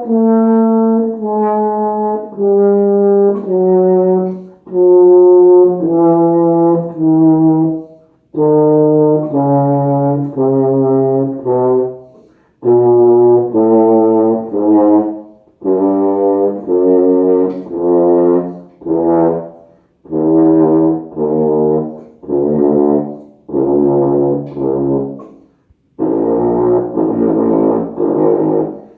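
King 2280 four-valve euphonium playing a descending scale, one held note after another, in phrases separated by short breaths. It works its way down from B-flat into the low register of the instrument.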